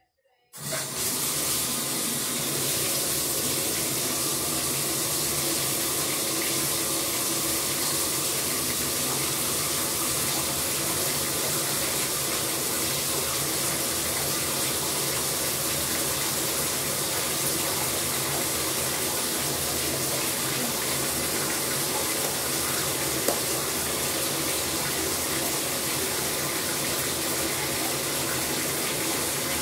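Bathtub faucet turned on about half a second in, then running steadily as water pours into the tub to fill it.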